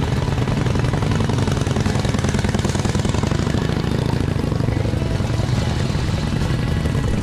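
Vintage motorcycle engines running with a rapid, steady exhaust beat as the old bikes ride past.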